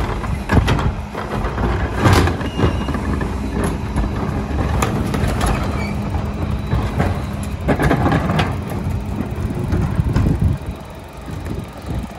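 Diesel engine of a split-body rear-loader garbage truck running steadily, with repeated bangs and clatter as plastic carts and bins are tipped into its hopper. The hum fades about ten seconds in, as the truck pulls ahead.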